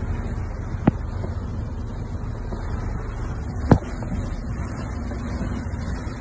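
Car driving through floodwater, heard from inside the cabin: a steady low rumble of engine and water, broken by two sharp knocks, one about a second in and a louder one near four seconds.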